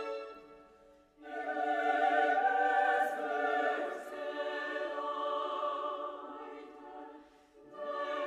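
Background music of slow, classical-style long held chords. A phrase fades out, a new one swells in after about a second, and another begins near the end.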